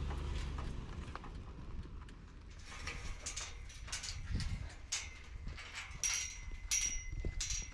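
Metal gate hardware being worked by hand: a run of sharp clinks and rattles with brief ringing tones, starting about two and a half seconds in after a low wind rumble.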